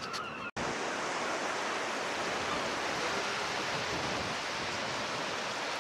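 Sea surf rushing steadily, an even hiss of breaking water with no single wave standing out, after a brief break about half a second in.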